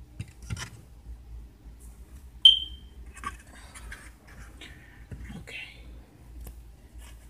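Faint knocks and rustles of small objects being handled, with one sharp, high ringing ping about two and a half seconds in.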